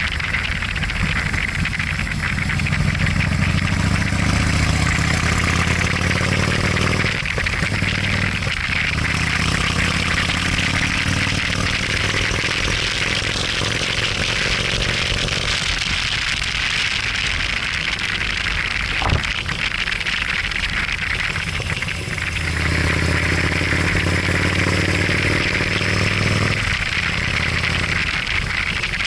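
Motorcycle engine running under way, with wind rushing over the microphone. The engine note rises as it pulls, falls away briefly twice early on and for several seconds past the middle as the throttle eases, and there is one sharp click about two-thirds through.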